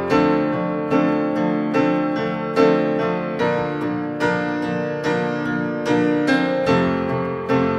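Background music: a piano playing steady chords, struck roughly once a second, with no singing.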